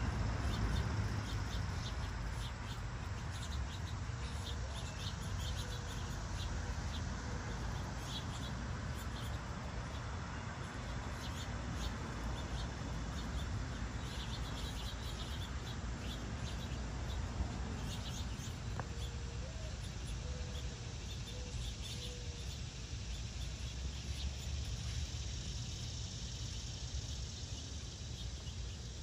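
Garden ambience: a steady low rumble with scattered short, high chirps and ticks from small birds or insects, and a few faint wavering calls at about 6 seconds and again around 20 seconds.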